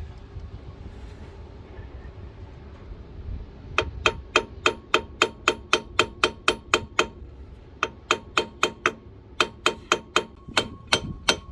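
Hammer blows on metal in quick runs of about four strikes a second, each with a short ring, with brief pauses between the runs, beginning a few seconds in: striking to knock a stuck cylinder head loose on a Scania 82H diesel engine.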